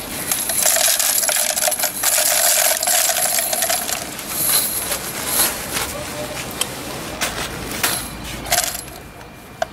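Loose metal grommet eyelets poured from a plastic bag into the clear plastic hopper of a semi-automatic eyelet machine: a dense metallic jingling for the first few seconds, then scattered clinks as they settle.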